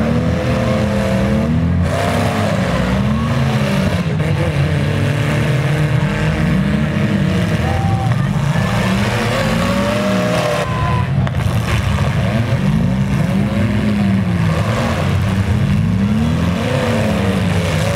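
Demolition-derby minivan and pickup engines revving hard and dropping back again and again as the vehicles ram and push each other, over a constant engine rumble.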